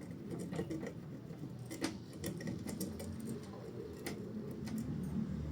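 Light, scattered clicks of multimeter probes tapping against the components and solder points of a washer's control board during resistance checks, over low background noise.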